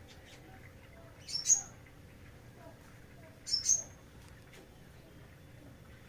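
A small caged songbird giving a short, high, two-part chirp twice, about two seconds apart.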